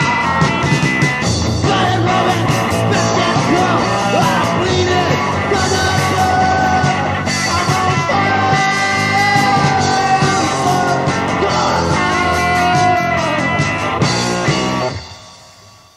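Punk rock band playing loud, with electric guitar, drums and a singer's voice. The song ends about 15 s in, the sound dropping away quickly.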